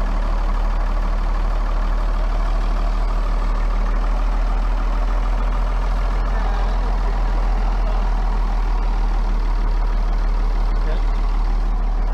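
The diesel engine of a 1957 Volvo TL22 army truck idling steadily, a low, even running sound.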